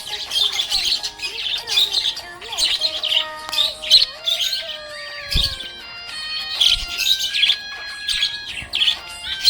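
Budgerigar chirping and warbling in quick, busy runs of high chirps, over background music with held notes.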